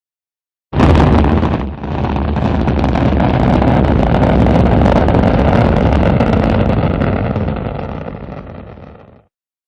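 Rocket engine sound effect for an animated spacecraft burn. It starts suddenly a little under a second in, dips briefly, then runs as a steady, deep rushing noise that fades out near the end.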